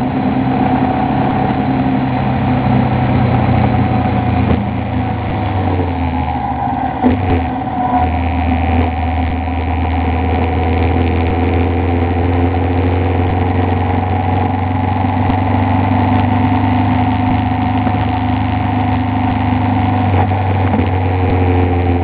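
Moto Guzzi Bellagio's air-cooled transverse V-twin running steadily on the road, mixed with wind and road noise. About seven seconds in the engine note dips briefly and then settles at a steady lower pitch.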